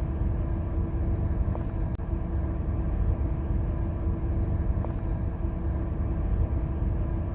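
Steady low rumble of a vehicle driving, with a faint steady hum over it.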